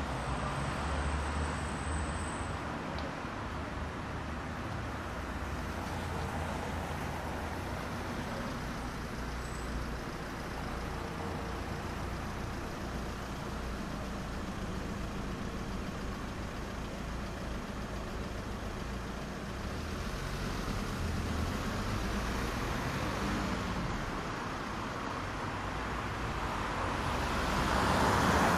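City street traffic: a steady wash of cars and other road vehicles driving past. Near the end a vehicle passes closer and the sound swells to its loudest.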